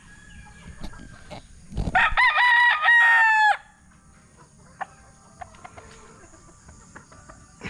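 A rooster crowing once, a loud cock-a-doodle-doo lasting about a second and a half, starting about two seconds in.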